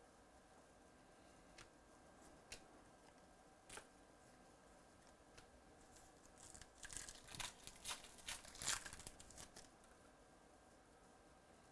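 Foil wrapper of a trading-card pack being torn open and cards handled: a few faint isolated crinkles, then a busier run of tearing and crinkling from about six and a half to nine and a half seconds in.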